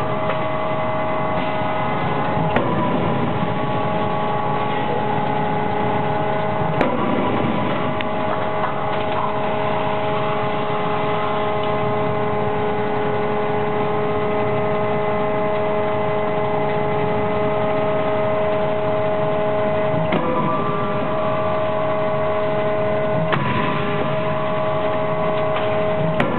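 Forging-line machinery around a 4500 lb (50 kJ) CNC hydraulic die forging hammer running with a steady multi-tone hum. A few sharp knocks come through it, spread out over the stretch, as the hammer strikes the hot workpiece.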